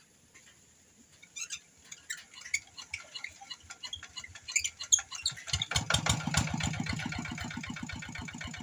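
Single-cylinder diesel engine of a Quick G1000 hand tractor being started: a few seconds of irregular metallic clicks and knocks while it is cranked, then it catches about halfway through and settles into a fast, steady chugging run.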